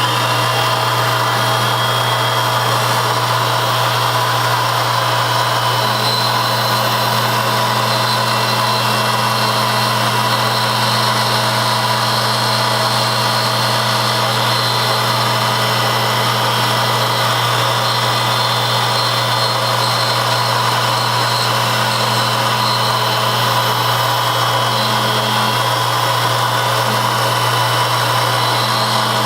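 Machine tool's motor running steadily with a constant hum. A second, slightly higher hum comes and goes several times.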